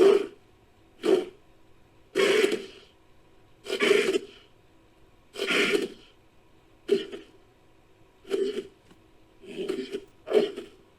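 Creature sound effects for a Dinopithecus, a giant prehistoric baboon: a series of about nine short, harsh, cough-like grunts, one every second or so, a few of them longer and breathier.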